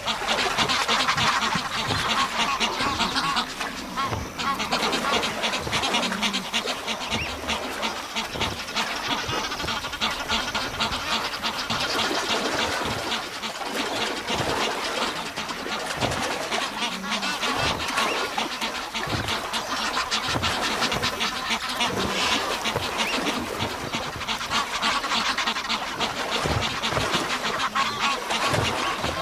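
Egyptian geese fighting: a continuous, loud din of harsh honking calls from rival males squabbling over territory.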